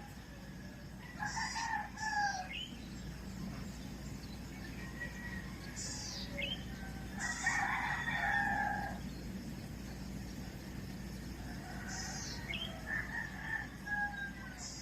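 A rooster crowing several times, the longest and loudest crow about halfway through, with quick high chirps of small birds between the crows.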